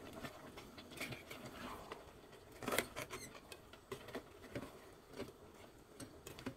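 Black plastic ladle stirring prawns, onion and chilli in thick sauce inside a metal rice-cooker pot: faint, irregular scrapes and clicks of the ladle against the pot, the loudest about three seconds in.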